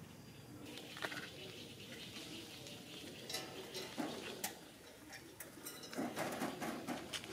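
Light, irregular taps and clinks as a macaque walks over an aluminium ladder frame, its hands and feet knocking on the metal rungs and rails. The taps come in clusters, about a second in and again through the second half.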